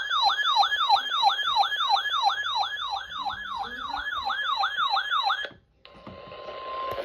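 Electronic siren-style alert yelping in fast falling sweeps, about three a second, which cuts off abruptly about five and a half seconds in. Near the end a steady hissy tone of about 1 kHz begins: the NOAA Weather Radio warning alarm tone that comes before a spoken warning.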